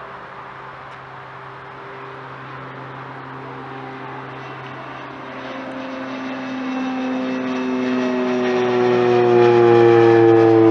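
Twin-engine turboprop aircraft flying low overhead: the drone of its engines and propellers grows much louder over the second half, its tones sliding gradually lower as it comes closer.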